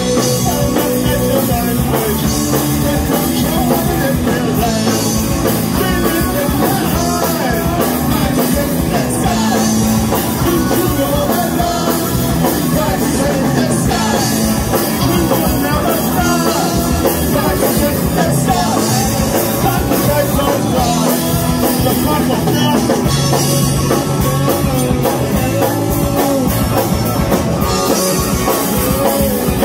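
Punk rock band playing live: distorted electric guitars, bass guitar and a drum kit, with a lead vocalist singing over them, continuous and loud.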